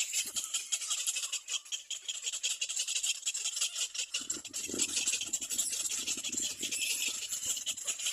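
Little black cormorant chicks giving rasping begging calls, a dense rapid scratchy rattle, with lower calls joining about four seconds in.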